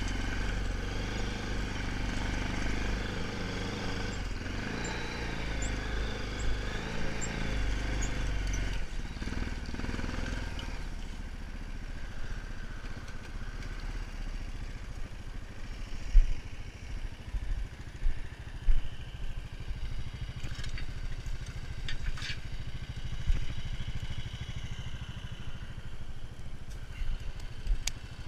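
Honda 500 FA ATV's single-cylinder engine running under load while pulling a tillage implement, then dropping to idle about ten seconds in. A few knocks and clatters sound over the idle.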